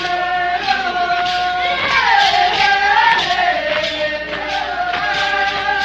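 Tribal dance music: a group of voices singing long, gliding notes over a steady drum beat.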